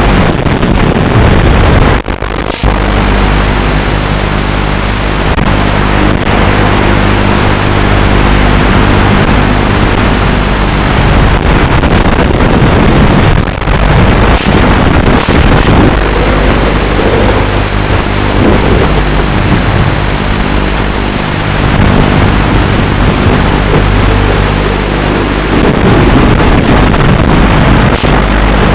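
FPV quadcopter's onboard audio: loud, steady wind rush and motor noise, with a brief drop about two seconds in.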